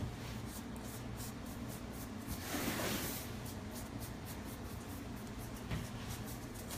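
Soft brushing and rubbing strokes against fondant on a cake, a run of light scratchy strokes that grow a little louder about two and a half seconds in.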